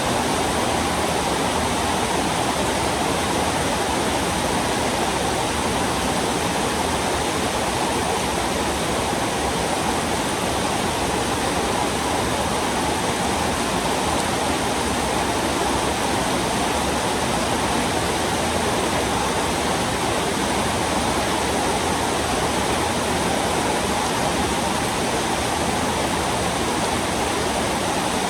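Heavy rain falling steadily: a loud, even hiss of rain with no breaks or separate sounds.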